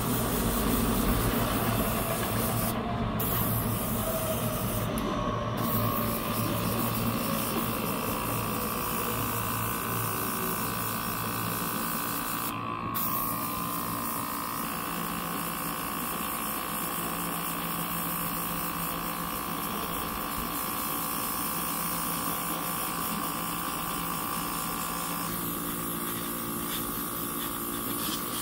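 Airbrush spraying paint in light misting passes, a steady hiss of air over the hum of its small compressor. The hiss cuts out briefly about 3, 5 and 13 seconds in as the trigger is let go.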